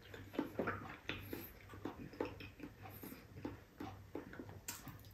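Faint mouth sounds of a person chewing food: irregular small wet clicks and lip smacks, several a second.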